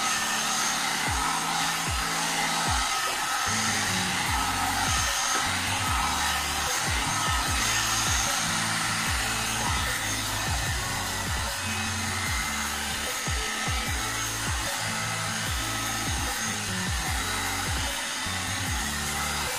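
A hot air brush (one-step dryer brush) blowing steadily, a continuous airy rush. Background music with a bass line and a regular beat plays underneath.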